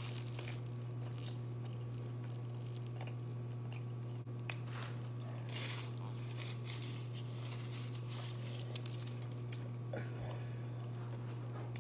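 Close-up chewing and crunching on chicken wings, with irregular crisp crunches every second or so. A steady low hum runs underneath throughout.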